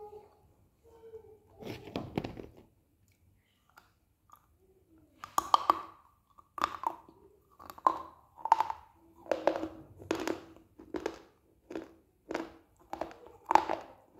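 Close-up crunchy chewing of dry edible clay chunks. There is a single bite about two seconds in, then from about five seconds in a steady run of short crunching chews, a little more than one a second.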